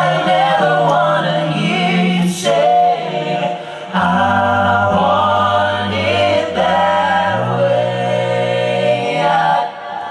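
Male a cappella group singing sustained vocal harmonies with no instruments, amplified through stage microphones. A low bass voice comes in about four seconds in, under the held chords.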